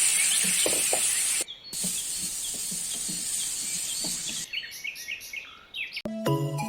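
Birds chirping repeatedly over a steady loud hiss of outdoor ambience. The hiss drops out for a moment about a second and a half in and fades away after about four and a half seconds, leaving the chirps clearer.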